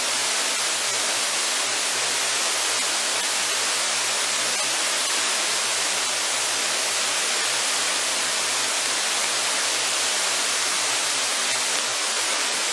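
A steady, even hiss with no tone or beat in it.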